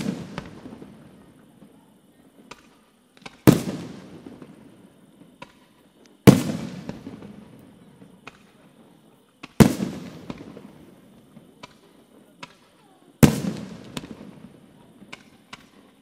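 Aerial firework shells bursting in a display: a loud bang every three to four seconds, each followed by a long rolling echo, with fainter cracks and pops between them.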